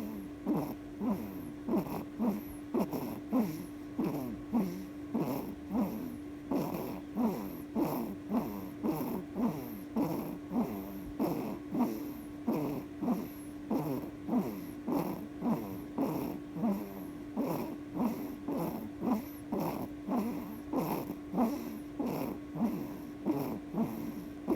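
Newborn baby snoring: a steady run of short snorts, a bit more than one a second, that sound like a small motorbike. A constant hum runs underneath.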